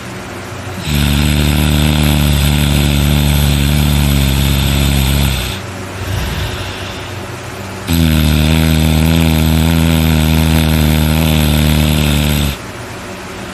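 A person snoring very loud: two long snores, each held at a steady pitch for about four and a half seconds, with a quieter breath between them.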